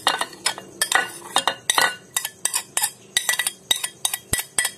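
A metal spoon clinking and tapping against ceramic dishes while soaked sago pearls are scooped from a plate into a bowl of mashed potato: quick, irregular clinks, several a second, with one duller knock near the end.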